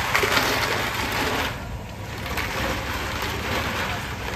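Drink being stirred with a long stick inside a large plastic dispenser barrel, a clattering churn that eases off about a second and a half in and then resumes, over a steady low rumble of market background.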